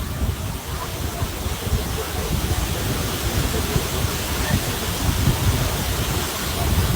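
Steady rushing water of a waterfall, a constant full hiss with no breaks.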